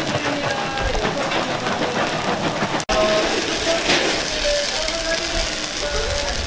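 Street-food stall ambience: a steady hiss of batter frying on a takoyaki griddle, under a murmur of market voices and faint music. The sound drops out for an instant about three seconds in.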